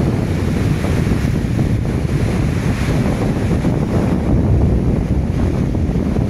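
Mississippi River water pouring over the St. Anthony Falls spillway and churning through the rapids below in heavy flow: a loud, steady roar of rushing water, with wind buffeting the microphone.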